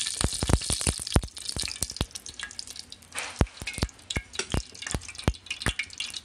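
Cooking oil heating in a non-stick kadai, crackling and spitting with irregular sharp pops, several a second. A faint sizzle in the first second dies away.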